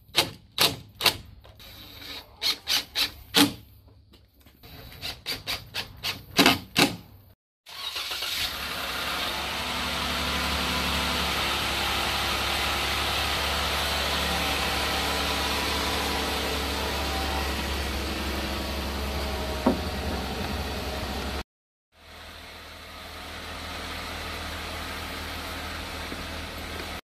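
Cordless drill driving screws into the plastic snorkel head, heard as three clusters of sharp clicks. This is followed by a loud, steady engine-like running sound with a low rumble that cuts off suddenly, then resumes more quietly after a short gap.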